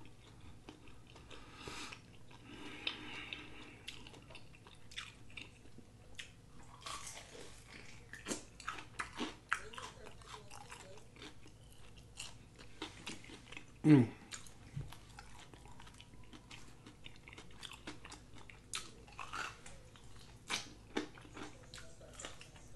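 Close-up eating of Wingstop chicken wings, fried extra crispy: biting, wet chewing and lip smacking with some crunch. About fourteen seconds in there is one brief, louder falling hum.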